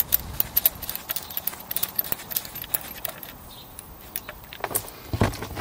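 Quick metallic clicks and clinks of a spanner on the oil sump drain plug as the plug is worked loose, with a few dull knocks near the end.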